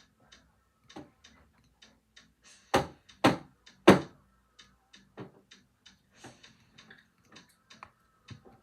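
A run of short, sharp ticking clicks, about three a second, with three much louder knocks close together about three seconds in.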